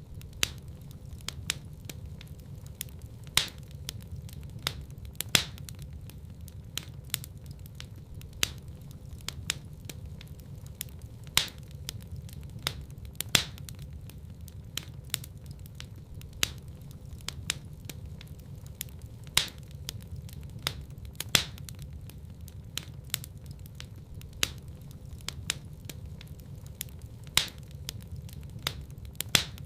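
Wood fire crackling in a fireplace: a steady low rumble of burning with frequent irregular snaps and pops, some much louder than the rest.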